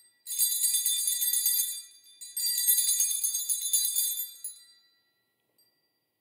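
Altar bells shaken in two jangling rings, the second starting about two seconds after the first, each fading out over a couple of seconds. They ring to mark the elevation of the host at the consecration.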